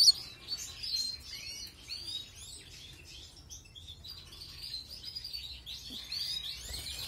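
South Dutch Frill (Frisé du Sud) canaries chirping and twittering, many short high calls and trills that thin out midway and pick up again near the end.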